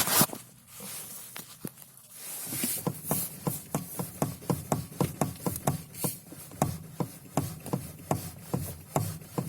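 Lada Kalina steering rack knocking as the wheel is worked back and forth around the centre position: a run of short, sharp knocks, about three a second, starting a couple of seconds in after a single loud bump. The knock persists even after the rack has been rebuilt twice, with a caprolactam bushing and a new support spring.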